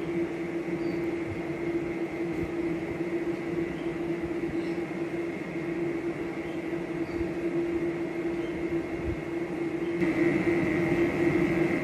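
Steady mechanical hum with a constant tone, slightly louder in the last two seconds.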